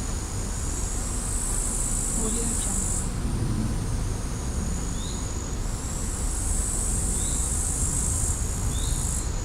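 Forest ambience dominated by a high, steady drone of insects and crickets with a fixed high tone. The drone swells for two long spells, about a second in and again midway. A few short rising chirps are spaced a couple of seconds apart over a low wind rumble.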